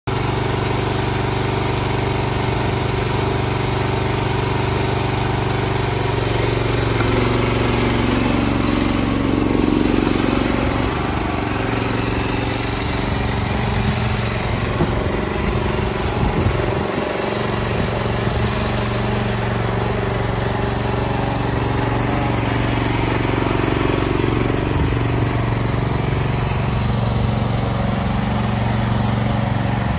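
Small single-cylinder engine of a Dragon PB1000 tracked mini dumper running steadily as the machine drives along, swelling a little louder about eight to ten seconds in.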